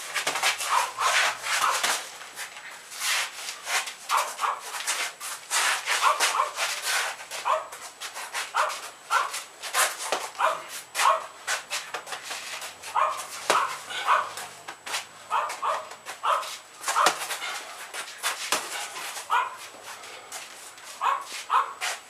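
Gloved punches landing on a training partner's boxing gloves in quick, irregular strikes, with short high-pitched squeaks among them.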